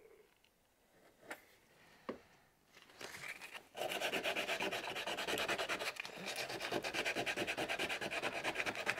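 Hand sanding on carved wood: after a couple of small clicks, rapid back-and-forth rasping strokes start about three to four seconds in and keep going. The sanding works wood dust into wet super glue to fill a crack.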